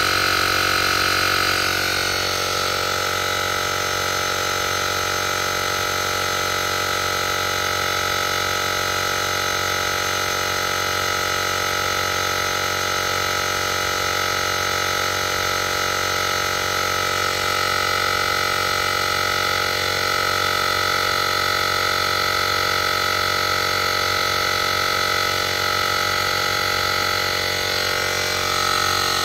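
JM-8817 portable digital air compressor running steadily while inflating a tire: a constant motor-and-pump drone with a high whine. The tone shifts slightly about two seconds in.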